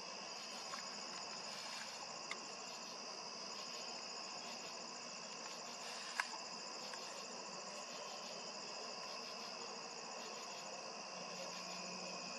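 Steady chorus of insects trilling at several high pitches, unbroken throughout. One sharp click sounds about six seconds in, with two fainter ticks earlier.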